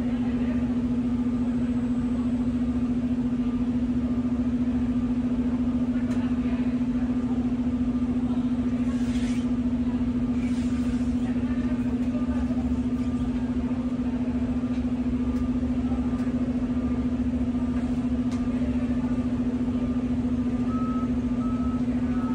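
Steady drone of an idling heavy vehicle engine with a low rumble. Near the end a reversing alarm beeps at an even pace.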